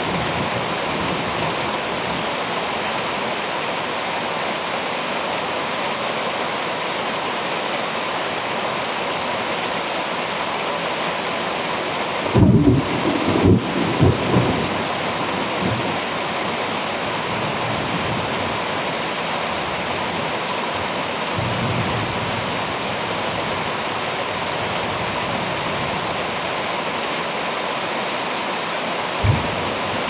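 Heavy rain pouring steadily onto leaves and ground, a dense even hiss. A cluster of short, low thumps breaks through about halfway in, and another comes near the end.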